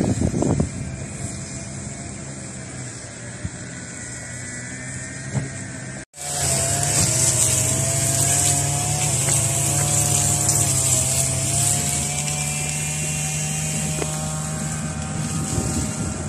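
Steady motor-vehicle engine hum with wind hiss on the microphone. It cuts out for an instant about six seconds in and comes back louder, with a low steady drone and a wavering higher tone.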